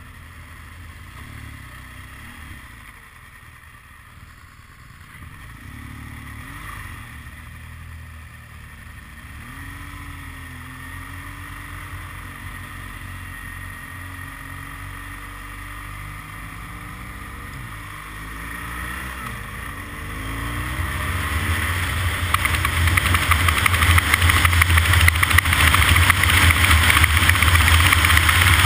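An engine running, its pitch wavering up and down, then getting much louder about two-thirds of the way through.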